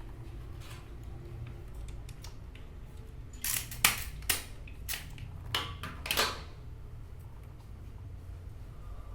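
A hand cutter snipping through CCTV cable: about six sharp snips in quick succession in the middle, over a steady low hum.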